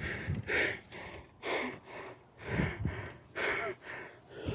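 Heavy, rhythmic breathing of a person running or climbing, about one breath a second.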